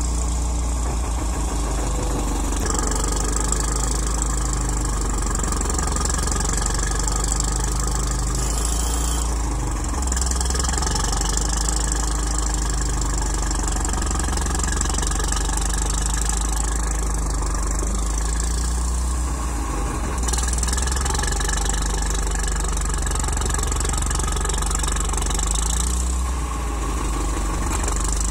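Diesel engine of a Waryński K-406 wheeled excavator running steadily under a low, constant hum. Its tone shifts a few times while the boom holds a suspended concrete ring.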